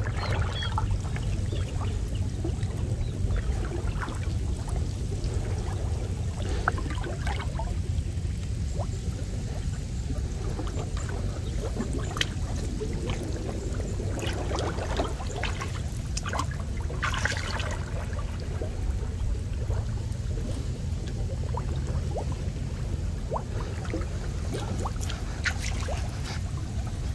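Water sloshing and splashing around a person wading waist-deep while paying out a gill net, with scattered small splashes and drips over a steady low rumble.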